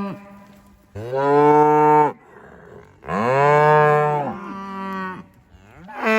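Cattle mooing loudly in long, drawn-out calls, one after another: one about a second in, another at about three seconds that trails off, and a third starting near the end. The herd is super excited, anticipating its daily move.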